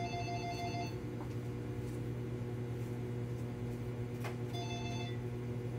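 A steady low hum, with an electronic alert tone of several pitches sounding briefly at the start and again about four and a half seconds in. There is a soft knock just before the second tone.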